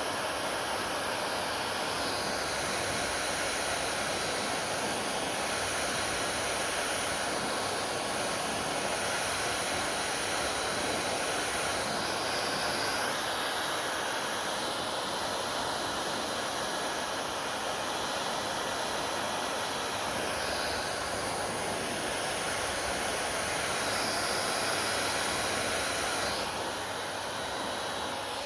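Hair dryer blowing steadily, a constant rush of air and fan noise that shifts slightly in tone every few seconds.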